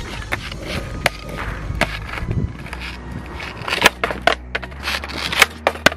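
Skateboard wheels rolling over rough asphalt, with a string of sharp clacks and knocks as the board's deck and wheels strike the ground and the board is kicked up.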